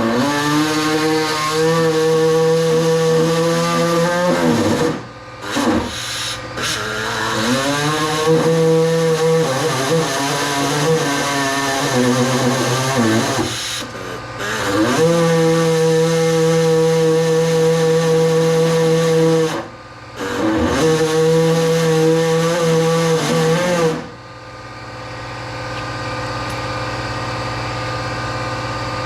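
Power tool cutting automotive door sheet metal in four runs, each winding up in pitch at the start and winding down at the end. After the last run a steadier, quieter hum of an air compressor carries on.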